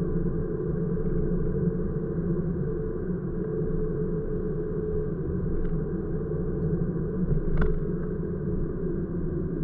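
Steady low rumble of a car driving along a city street, engine and tyre noise heard from inside the cabin, with a brief click about three quarters of the way through.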